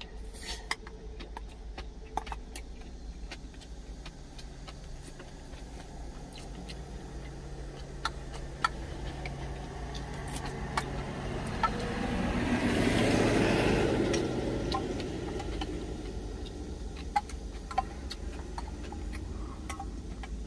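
A wooden spoon clicking and scraping now and then against a small stainless steel bowl, over a steady low hum. About halfway through, a vehicle passes outside, its noise swelling for a few seconds and then fading away.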